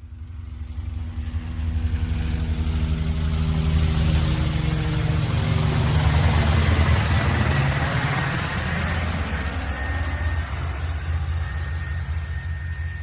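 Helicopter flying past, its rotor and engine noise building up over the first couple of seconds, loudest about halfway, then slowly fading away.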